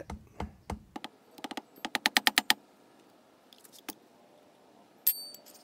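Small metal clicks and taps from a hand tool working the intermediate shaft plug in the centre of a transmission drive shell: scattered clicks, then a quick run of them about two seconds in. Near the end comes one sharp metallic clink that rings briefly.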